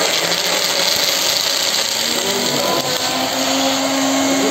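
Electric hand blender running in a mixing cup, blending ice, chopped pineapple, pineapple juice, cream and ice cream, its motor pitch wavering as the blade works through the ice and fruit.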